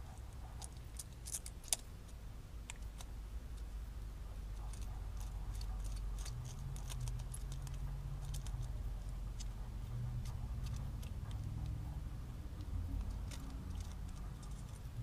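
Scattered light metallic clicks and small scrapes as paper-thin aluminium washers are worked by hand off a pin, one sharper click about two seconds in, over a low steady hum.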